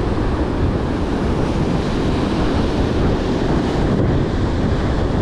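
Rough surf breaking in white water against the foot of a rocky sea cliff, a steady rush, with wind buffeting the microphone.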